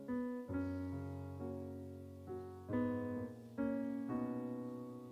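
Electronic stage keyboard playing slow, soft chords in a piano sound, each chord struck and left to fade before the next.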